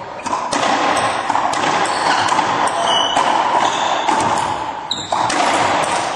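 Racquetball rally in a doubles game: the ball cracking off racquets and the court walls in quick succession, roughly every half second, each hit echoing around the enclosed court. A couple of short high shoe squeaks on the hardwood floor come in between.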